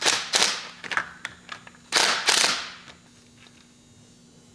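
Cordless impact driver hammering in two short bursts, one at the start and one about two seconds in, loosening the nut on a camshaft timing gear, with a few light metallic clicks between.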